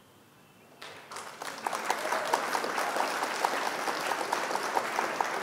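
Applause sound effect: dense clapping that swells in about a second in and then holds steady.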